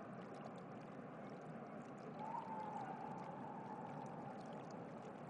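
Faint, steady background ambience: an even rushing noise, with a faint held tone that rises briefly about two seconds in and lasts around a second.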